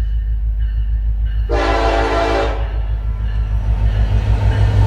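Canadian National freight train's lead diesel locomotive sounding one horn blast of about a second, about a second and a half in. Under it runs the low rumble of the approaching locomotives, growing louder.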